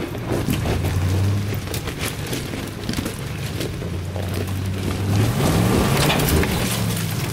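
Dodge Ram 2500's 5.7-litre Hemi V8 pulling the truck up a loose rock slope, revving higher about five seconds in as the tyres spin. Gravel and rocks crunch and pop under the tyres throughout.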